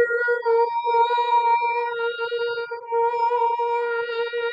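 A woman's voice toning one long, steady high note, with a few brief breaks for breath.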